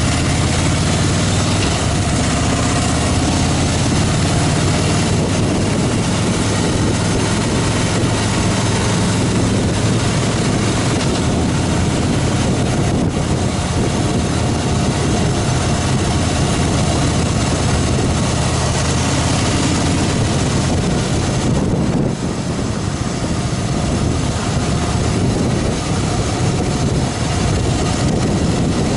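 Harley-Davidson Fat Boy Lo's air-cooled V-twin running steadily at road speed under heavy wind rush on the microphone.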